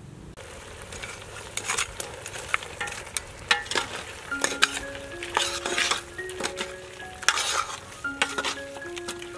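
Metal ladle stirring and scraping pork ribs in curry paste around a large metal pot, the meat sizzling, with irregular clinks of the ladle against the pot. A soft instrumental melody comes in about four seconds in.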